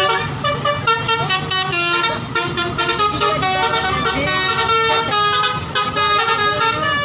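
Basuri telolet multi-tone horn on a tour bus playing a quick melody: several horn tones sound together and step up and down in pitch, over a steady low engine rumble.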